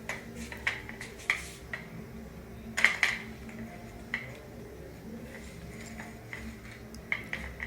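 Ring light parts being handled and fitted together: a scattering of light clicks and clinks of plastic and metal pieces, with the loudest clatter about three seconds in.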